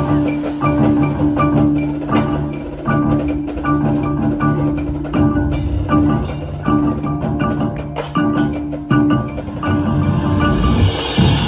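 Marimba played with mallets in quick runs of struck wooden-bar notes, over held low notes from the rest of the front ensemble. A rising wash of high sound builds near the end.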